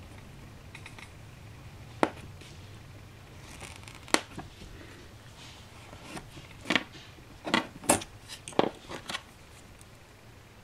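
Craft knife scoring a small laser-cut model door along a steel rule on a cutting mat: light scraping strokes with a sharp click about two seconds in and another about four seconds in, then a run of short clicks and scrapes near the end as the trimmed part and rule are handled.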